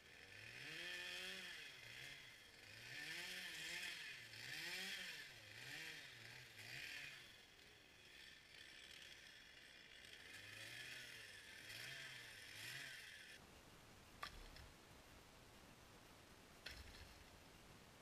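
Stihl chainsaw running faintly, its engine speed rising and falling about once a second, until the sound cuts off abruptly about thirteen seconds in. Two sharp knocks follow.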